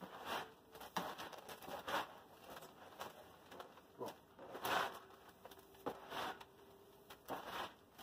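Hands mixing dry, gritty bonsai substrate of bark, grit and vermiculite in a tray: irregular rustling and crunching scrapes as the mix is turned over, with one louder scoop a little past halfway.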